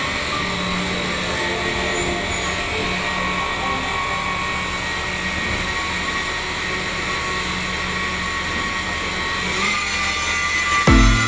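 Heavy machinery running steadily, the engine and hydraulics of a concrete pump, with a few steady whining tones over the noise. Music with a heavy beat starts near the end.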